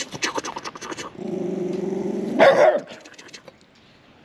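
A dog growling for about a second, then giving one loud bark.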